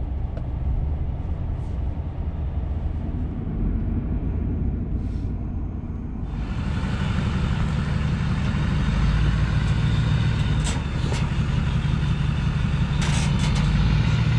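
Pickup truck engine and road noise heard from inside the cab while driving. About six seconds in it cuts to a pickup idling, heard from outside, with a few short knocks near the end.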